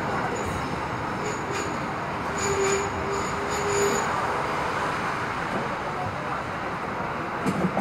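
Hong Kong double-decker electric tram running along its tracks, heard from inside the upper deck: a steady rumble of wheels on rail. A steady whine stands out for about a second and a half near the middle.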